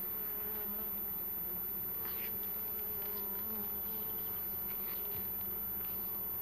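Honeybees buzzing in a steady drone around an opened hive during a frame inspection.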